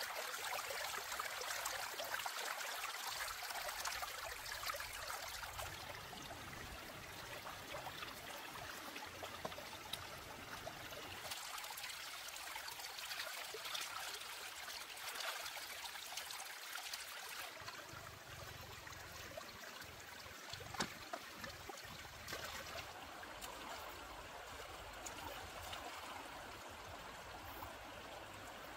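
Shallow rocky stream flowing and trickling steadily. In the first few seconds it is louder and splashier as hands rinse raw meat in the running water. There is a single sharp click about two-thirds of the way through.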